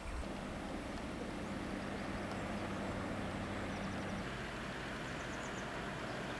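Steady open-air background noise with a faint low drone that shifts in pitch about four seconds in, and a few quick series of faint high chirps.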